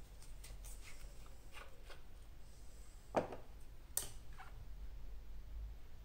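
Light, scattered taps and clicks of a paintbrush and paint bottle being handled, with a slightly louder knock about three seconds in and a sharp click about a second later, over a faint low hum.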